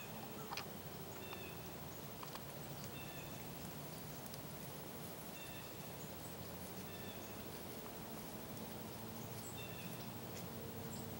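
Faint outdoor ambience with short, high bird chirps repeating every second or two, a few light ticks, and a faint steady low hum.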